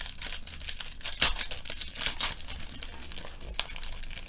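Plastic trading-card pack wrappers crinkling and tearing as they are opened and crumpled by hand, with sharper crackles about a second in and again about two seconds in.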